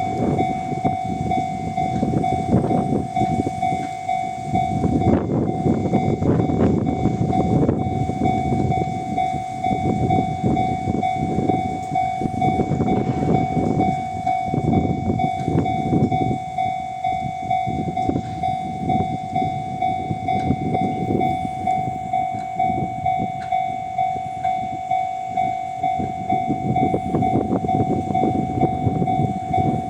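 A Japanese level-crossing alarm sounds its steady electronic tone, of the Tohoku type. Under it, a container freight train hauled by an EF510 electric locomotive rumbles past, its wheels clattering over the rails in a regular rhythm.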